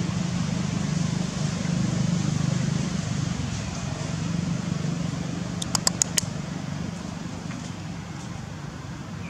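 A steady low mechanical hum over general outdoor background noise, with four quick, sharp, high chirps in a rapid run about six seconds in.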